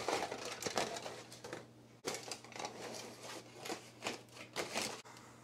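Aluminum foil crinkling and rustling in irregular bursts as it is laid over a roasting pan and pressed down around the pan's edges. There is a short lull about two seconds in, and the crinkling stops near the end.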